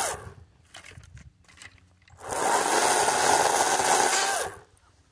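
Kobalt 40V cordless electric chainsaw cutting small branches: a few faint clicks, then about two seconds in the motor spins up and runs at a steady speed for a couple of seconds before stopping.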